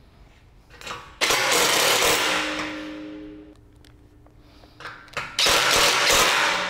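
Cordless drill-driver running twice, each time for about a second, driving screws into an aluminium gangway beam, with a few small clicks just before each run as the bit is set. Each run fades out over about a second.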